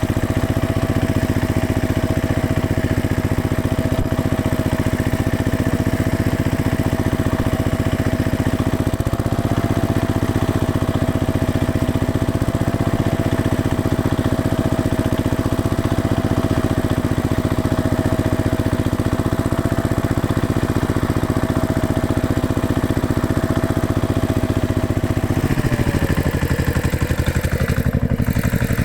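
Tractor engine running steadily with a constant whine over its note. About twenty-five seconds in, the whine slides down in pitch and the engine note changes.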